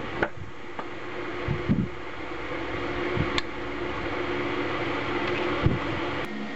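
Steady mechanical hum, like a workshop fan or motor, with a few light metallic clicks and knocks as steel coin dies and a small steel punch are handled and set down on a steel workbench.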